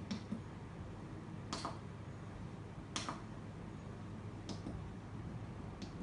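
Membrane-switch buttons on a control panel being pressed one at a time, a short sharp click about every second and a half, five in all, the middle two loudest.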